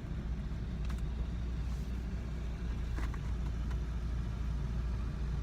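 A car engine idling steadily, heard from inside the cab as a low rumble, with a couple of faint clicks.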